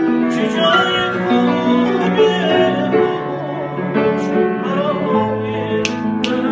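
A grand piano playing a slow melody while a man sings along with a wavering, held vocal line.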